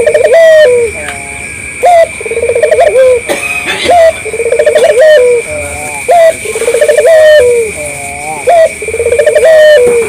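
Puter (Barbary dove) cooing over and over: rolling, trilled coos that end on a short higher note, one phrase every second or two. A steady high whine runs underneath.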